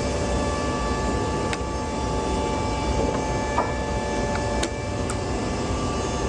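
A machine running steadily, with three short sharp clicks over it, the first about a second and a half in and two more close together later.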